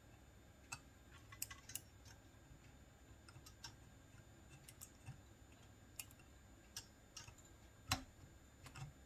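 Faint, irregular metal clicks and small knocks from a Rossi 92 lever-action rifle's action being handled while its mainspring is captured to take tension off the hammer. There are about a dozen clicks, with one louder knock near the end.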